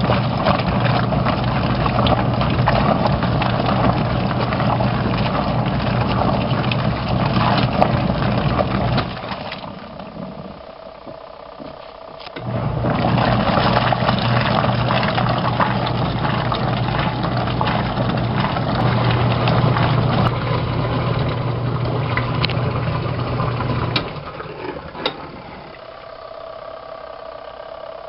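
Compact twin-tub washing machine running: a steady motor hum with water churning in the tub. It stops about a third of the way in, starts again a few seconds later, and stops again near the end.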